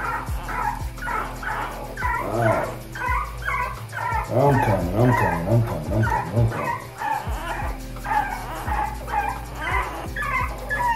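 A newborn French bulldog puppy, wet from a warm-water wash, crying in a string of short high squeals, two or three a second. From about four to seven seconds in, louder, deeper dog whines join in.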